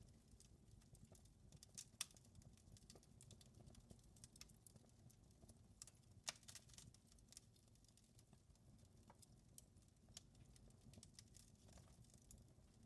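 Wood fire crackling in a fireplace: scattered sharp pops and clicks over a low steady rumble of flame, with two louder pops, about two seconds in and after six seconds.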